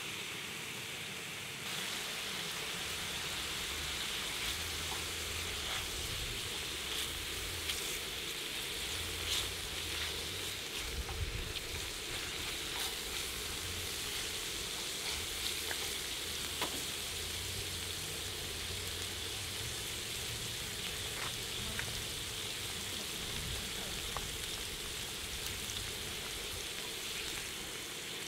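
Sliced pork belly sizzling steadily on a hot griddle plate as its fat renders out, with the hiss getting louder about two seconds in. Occasional light clicks of chopsticks against the plate as the meat is turned.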